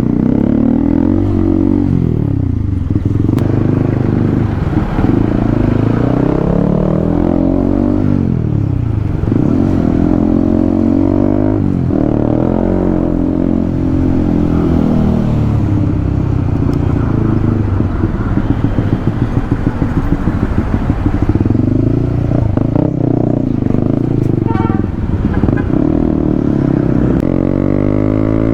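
Honda CB150R's single-cylinder engine running under way, revs climbing and dropping back again and again as it accelerates and shifts up through the gears.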